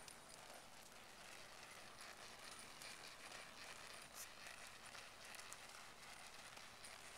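Faint hoofbeats of a ridden horse moving on soft arena dirt, over a low steady hiss.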